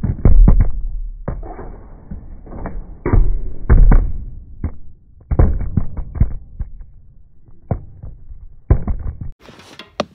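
Handling noise from a phone being grabbed and moved about: irregular clusters of dull knocks and rubbing against the microphone, stopping about nine seconds in.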